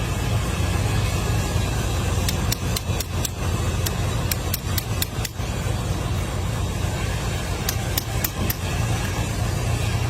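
A steady low engine-like hum from a running machine, with two runs of sharp clicks or taps: the first a couple of seconds in, the second near the end.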